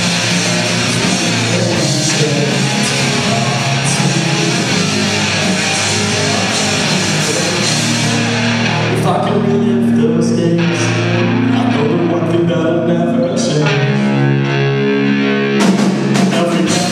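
Loud rock music with electric guitar. Past the middle the full band thins out to long held notes, then crashes back in near the end.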